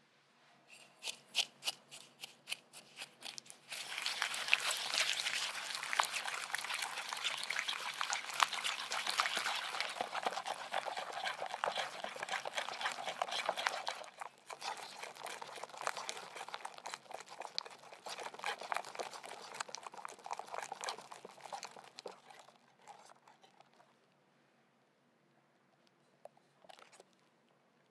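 Wire balloon whisk beating egg yolks and sugar in a glass bowl, the wires scraping and clicking against the glass. It starts with a few light taps, then runs as fast, continuous whisking for about eighteen seconds with a brief break midway, and dies away.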